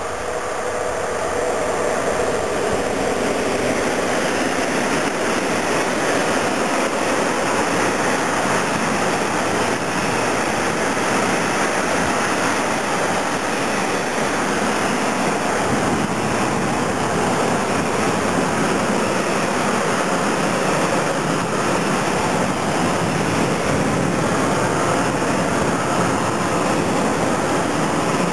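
Freight train of tank wagons passing close by, a steady rushing noise of steel wheels rolling on the rails. It swells over the first couple of seconds as the train arrives, then holds level as the wagons run past.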